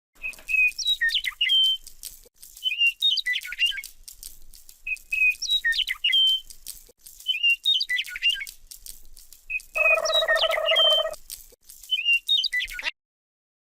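Electronic bird-chirp sound from a toy bird gun: the same short tweeting phrase repeats about every two seconds, six times. About ten seconds in, a buzzing tone sounds for about a second, and the sound cuts off abruptly near the end.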